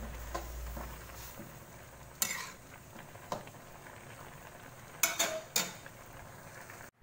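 Metal spatula stirring rice vermicelli in boiling water in a wok, with a few sharp scrapes and knocks of metal on the pan, the loudest about two and five seconds in, over the steady bubbling of the water.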